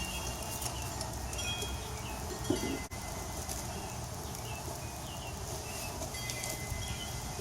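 Small birds chirping in short repeated calls over a low steady hum, with one dull knock about two and a half seconds in.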